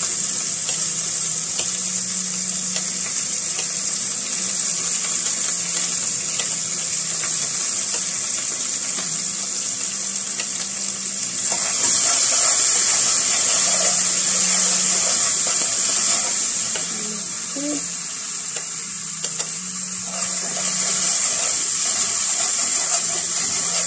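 Diced tomatoes sizzling as they fry in hot oil in a pot, a steady frying hiss that swells louder about halfway through and again near the end, with a low steady hum underneath.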